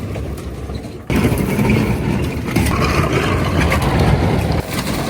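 Excavator crushing a scrap car: the diesel engine working under load, with crunching, crackling sheet metal. It jumps up suddenly about a second in and eases off near the end.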